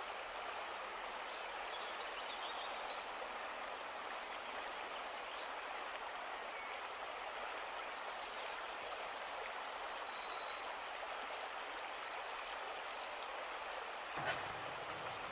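A bottlenose dolphin's high-pitched clicking chatter and squeaks come in short bursts about eight to twelve seconds in. They sit over a steady hiss of background noise.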